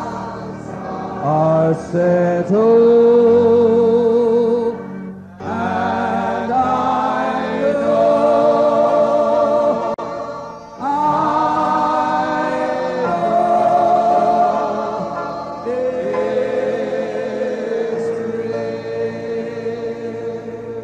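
Church congregation singing a slow hymn in long held notes with vibrato; the singing breaks briefly between phrases about 5 and 10.5 seconds in.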